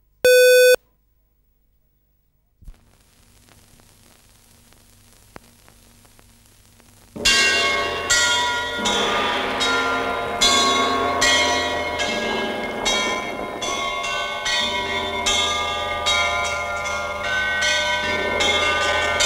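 A short beep, then a few seconds of faint hiss and hum, then Orthodox church bells start pealing about seven seconds in: several bells of different pitches struck over and over in a quick, uneven rhythm, each stroke ringing on.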